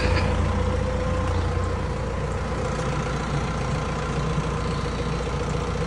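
Engine of the machine lifting the car shell, running steadily with a deep drone and a steady mid-pitched whine over it, the drone easing slightly about two seconds in.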